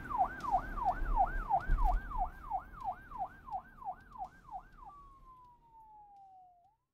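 Electronic siren sound effect in a fast yelp, the pitch sweeping up and down about three times a second. About five seconds in it changes to one long falling tone, and the whole sound fades out.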